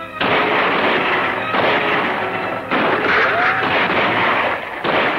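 Four loud gunshots, each with a long echoing tail, spaced a second or two apart. There is a short whine about three seconds in.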